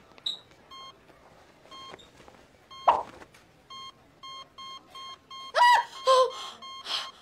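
Bedside heart monitor beeping with each heartbeat, at first about once a second and then quickening to about two a second: the patient's heart rate is rising. A sharp knock about three seconds in and two short falling pitched sounds near the end stand out over the beeps.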